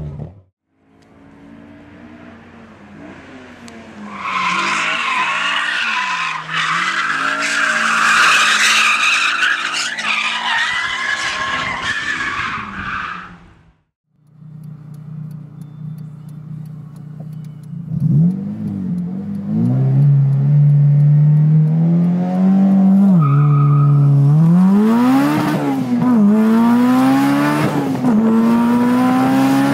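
Honda S2000's four-cylinder engine revving while its rear tyres spin and screech in a burnout. After a brief silence, it pulls hard through the gears from inside the cabin, with the revs climbing and dropping at each upshift.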